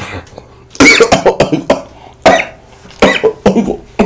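A man coughing several times in short, loud fits.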